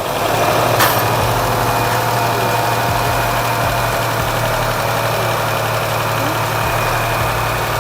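2015 Range Rover engine idling steadily, with a brief click about a second in. The engine is misfiring on cylinders 1 and 2, a fault that stays after the plugs and coils have been swapped.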